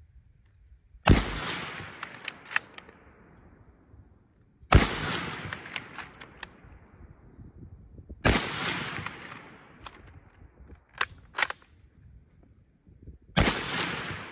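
Four shots from a Turkish Mauser bolt-action rifle, about three to five seconds apart, each with a long fading echo. Between shots come quick metallic clicks of the bolt being worked to chamber the next round.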